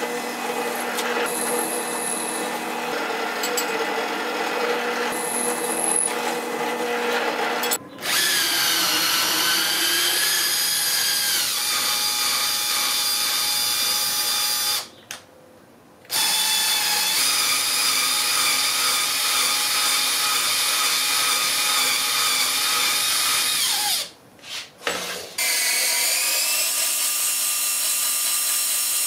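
A drill press boring into an aluminium bar for the first eight seconds or so, then a handheld electric drill turning a thread tap into an aluminium bar. The drill's whine dips and rises in pitch as the tap cuts, stops briefly twice, and spins back up with a rising whine each time.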